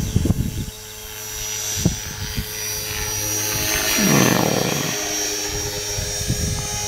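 Align T-Rex 450 electric RC helicopter in flight, its rotor and motor running with a steady whine. The sound swells louder about four seconds in and then eases. A few low thumps come in the first two seconds.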